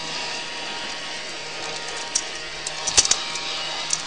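12-volt beater-bar vacuum cleaner running steadily, a motor whine over the hiss of its airflow, with a few sharp clicks as crumbs and grit are sucked up, loudest about three seconds in.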